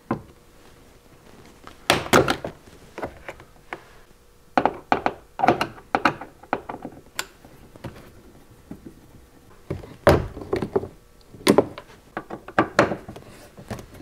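Screwdriver work on the plastic interior door panel of a Toyota FJ Cruiser: small trim covers prised out of the door-handle recess and the screws behind them removed. The result is a series of plastic clicks, taps and knocks, coming in clusters.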